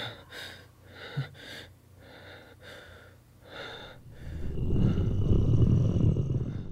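A frightened boy's quick, shaky breaths and gasps, one after another. About four seconds in, a deep low rumble swells up and becomes the loudest sound.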